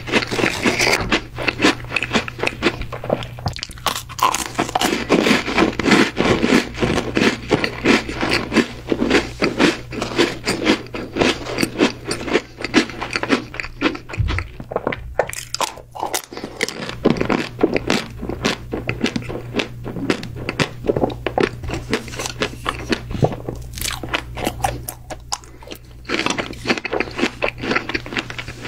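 Close-miked biting, crunching and chewing of chocolate sweets: a dense run of crisp crackles and crunches, with a short lull about two-thirds of the way through.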